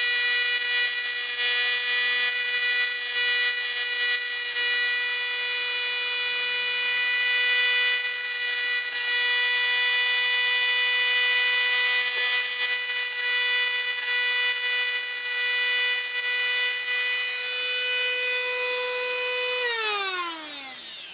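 Dremel rotary tool with a sanding drum running at a steady high whine, with a rasping grind on and off as a metal compressor reed valve held in locking pliers is sanded against it. Near the end the tool is switched off and the whine falls steadily in pitch as it spins down.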